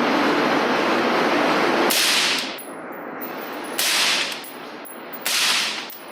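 Three suppressed rifle shots about a second and a half apart, each a sharp crack with a short hissing tail: a 5.56 mm AR-15 carbine with a 16-inch barrel wearing a Knight's Armament NT4 QDSS suppressor, pretty quiet. The shots are preceded by a steady rushing noise for about two seconds.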